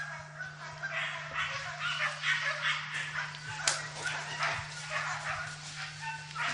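Hunting dogs barking and baying without a break, several voices overlapping, with a steady low hum underneath. A single sharp click a little over halfway through is the loudest moment.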